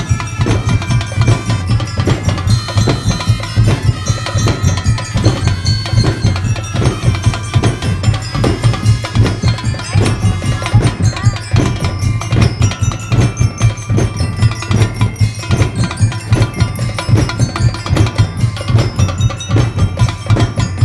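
School drum and bugle corps playing live: drums keeping a steady beat of about two a second under a ringing melody on mallet percussion (glockenspiel-like bells).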